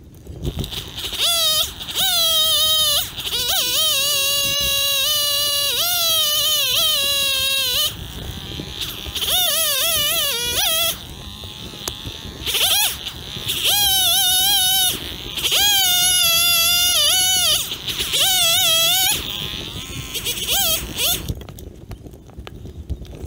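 Kazoo being played in several buzzy phrases with short breaks between them, the pitch wavering and gliding up and down; it stops about two seconds before the end.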